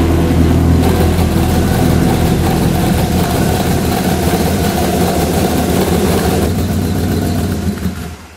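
Chevrolet Camaro engine running steadily through its twin-tip exhaust, a loud, even low pulsing that cuts off shortly before the end.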